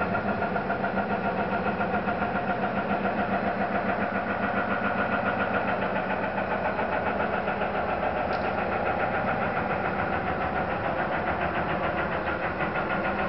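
An unidentified strange noise: a loud, steady drone made of several held tones, pulsing evenly about four times a second.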